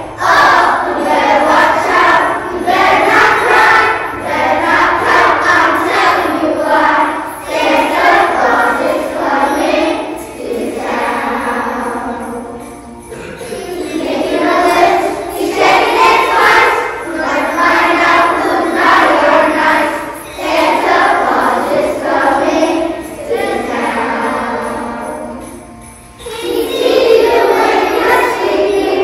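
A group of children singing a song together over music with jingling bells, with short pauses between phrases.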